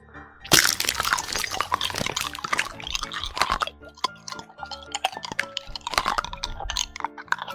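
Background music with a dense run of crackling, clicking sound effects that starts about half a second in and goes on throughout.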